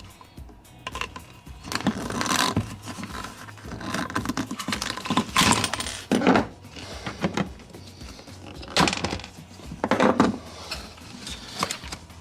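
Metal clinking and scraping in irregular bursts as hose clips are worked off a dishwasher's rubber drain pump outlet.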